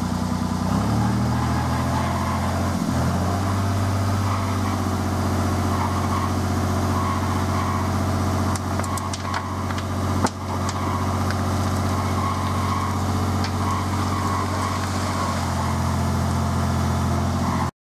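Diesel engine of a Terex site dumper running at raised revs while its hydraulic skip tips forward to dump a load of earth. The engine picks up speed about a second in and then holds steady, with one sharp knock about ten seconds in; the sound cuts off just before the end.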